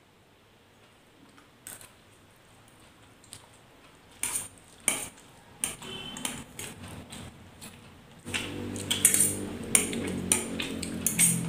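Forks clinking and scraping on steel plates in scattered strikes as two people eat noodles quickly. A low steady hum comes in about eight seconds in.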